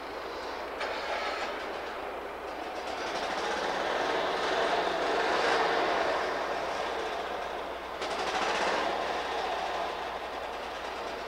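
Steady rolling noise of a passing vehicle, swelling to its loudest about halfway through and again briefly near the end.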